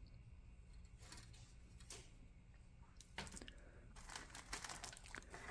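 Clear plastic bag of model-kit sprues crinkling as hands handle it, starting about three seconds in; before that only a couple of faint taps.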